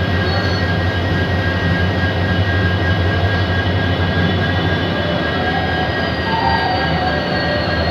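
WDP-4D diesel locomotive standing and humming steadily: a constant low drone with several steady high whines above it. A faint higher whine slowly falls in pitch over the last few seconds.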